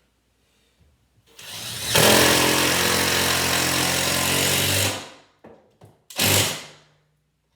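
Power drill running for about three seconds, building up to speed and then stopping, followed by a second short burst about a second later.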